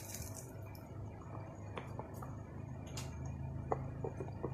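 Light, scattered clicks and taps from handling a small device and its packaging, over a low steady hum.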